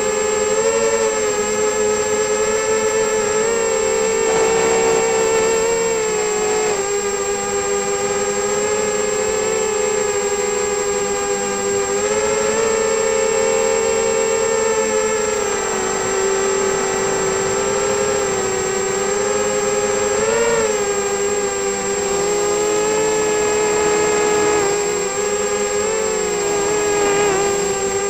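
Brushless motors and propellers of an FPV260 quadcopter whining steadily in flight, heard close up from its onboard camera, the pitch swelling and easing slightly as the throttle changes, with a thin constant high tone above it. Near the end the pitch drops as the throttle is cut.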